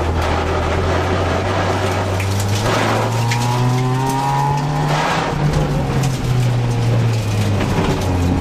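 Rally car engine heard from inside the cabin, pulling hard with its pitch rising for about three seconds, dipping and picking up again around five seconds in, then easing lower near the end. Short bursts of tyre noise come as the car turns on the wet surface.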